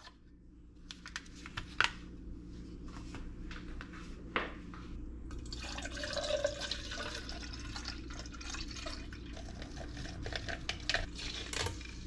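A few sharp clicks and rustles as a powder drink-mix packet is handled. About five seconds in, water starts pouring from a plastic gallon jug into a tall glass, a steady stream filling it for several seconds.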